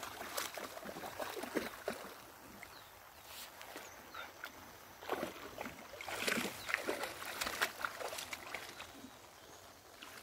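A dog wading through shallow muddy floodwater, its legs making soft, irregular splashes and sloshes.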